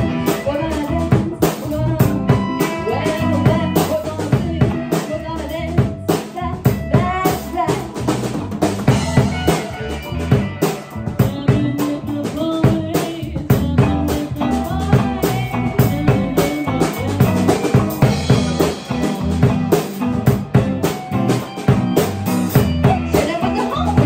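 A small rock band playing live: drum kit with snare and kick keeping a steady beat under electric guitar and bass guitar.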